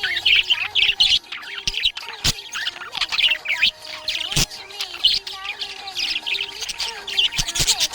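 Budgerigars chirping and warbling in quick, continuous chatter, the happy chirping of contented pet budgies.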